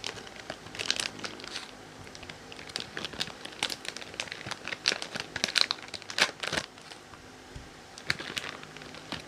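Plastic packaging crinkling and rustling in the hands, in irregular handfuls of sharp crackles with short pauses between.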